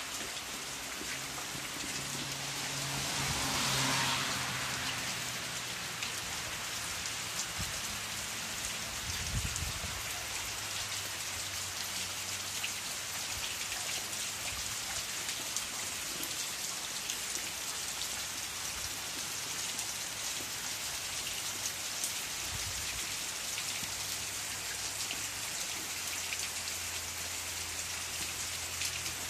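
Steady heavy rain pattering on a grass lawn and a tiled veranda roof, with a brief louder swell about four seconds in.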